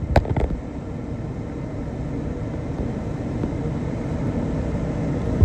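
Steady low rumble of a moving vehicle, with a couple of sharp clicks at the very start.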